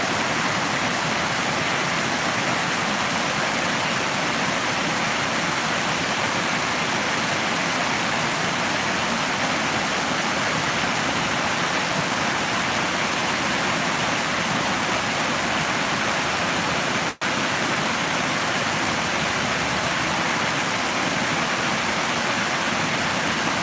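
Steady rushing water. The sound drops out for an instant about seventeen seconds in, then carries on unchanged.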